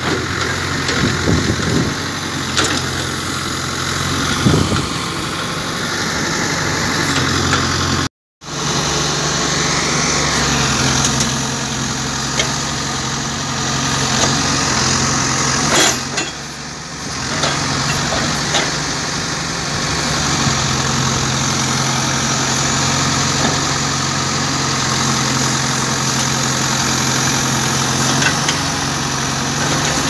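Case 770EX backhoe loader's diesel engine running steadily while the backhoe digs soil, with a few short knocks. The sound cuts out for a moment about eight seconds in.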